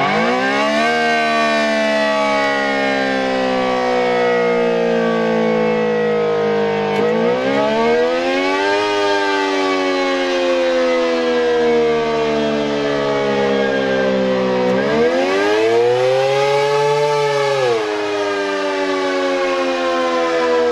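Electromechanical warning siren, the STH-10B to ACA-P10 install, sounding on test. Its pitch climbs sharply at the start, then sags slowly. It swells again about eight seconds in and once more around fifteen seconds, where it peaks and drops quickly about eighteen seconds in.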